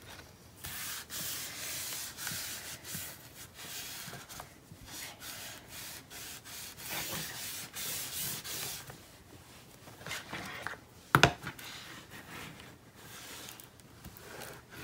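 Repeated rubbing strokes on paper, with one sharp knock about eleven seconds in.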